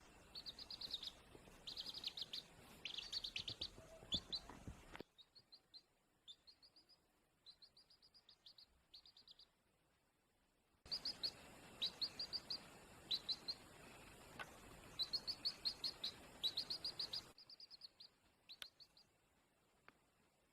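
Baby chick peeping: quick runs of short, high chirps, several a second, in bursts with brief pauses between them. The peeps are fainter for a few seconds in the middle.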